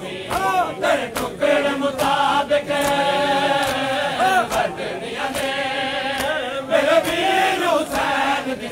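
Men's voices chanting a Punjabi noha (Shia mourning lament) in a drawn-out melody, over repeated sharp slaps of hands on bare chests (matam).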